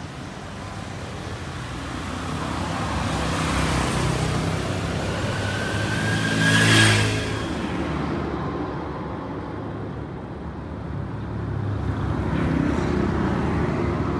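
Street traffic with cars and motorcycles driving by. Engines hum steadily under road noise. One vehicle passes close about seven seconds in, the loudest moment, with a brief rising whine. After about eight seconds the traffic sounds duller.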